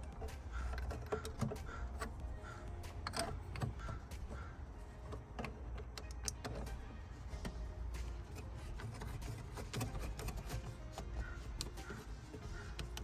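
Scattered light clicks and knocks of metal and plastic intake parts being handled as adapter pipes are slid into dual cone air filters.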